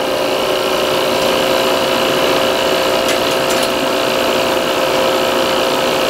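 Appion G5 Twin refrigerant recovery machine running steadily mid-recovery, its compressor and cooling fan making an even mechanical hum with a constant whine. A couple of faint clicks about halfway through.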